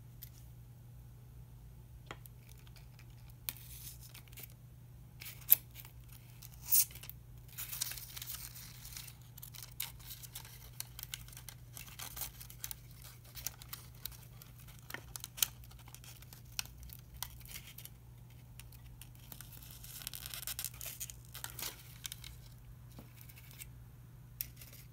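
Translucent paper strips rustling and crinkling as they are handled over a foam spreading board, with scattered small clicks and taps, the sharpest about five and a half seconds in. A steady low hum runs underneath.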